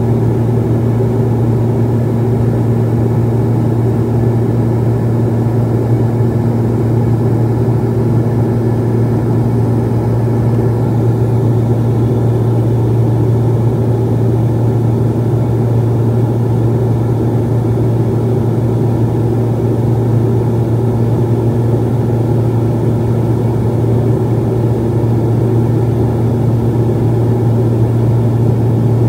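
Steady drone of the Beechcraft 1900D's Pratt & Whitney PT6A turboprop engine and four-bladed propeller, heard from inside the cabin. A strong, unchanging low propeller tone sits over engine and air noise.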